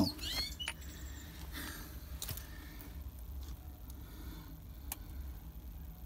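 Quiet background with a steady low hum, a bird chirping briefly at the start, and a few faint clicks.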